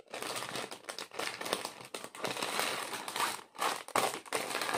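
Clear plastic packaging crinkling and rustling as it is pulled open and handled, with a strip of small plastic packets of diamond-painting drills among it.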